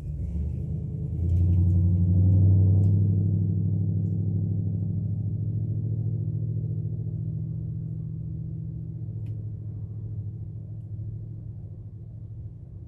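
Motor vehicle engine passing close by, a low pitched hum that swells about two seconds in and then slowly fades as it moves away.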